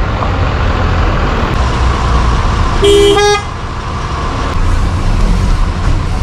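A vehicle horn honks once, briefly, about three seconds in, over a steady low rumble of wind and traffic.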